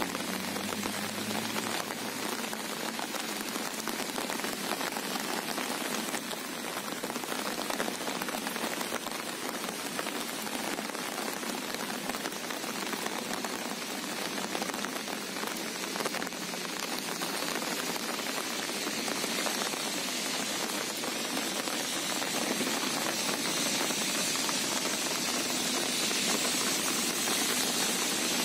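Steady rain falling on calm sea water: an even hiss of many small drops, getting a little louder and brighter near the end.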